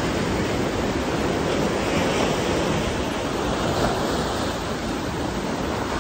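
Ocean surf breaking and washing in, a steady rushing noise.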